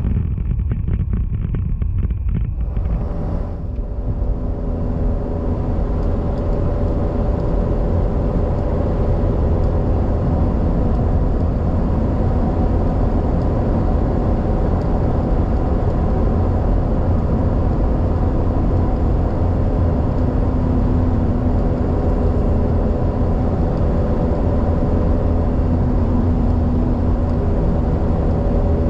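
Steady road noise inside a moving car: a low rumble of tyres and engine at speed, with a faint steady hum.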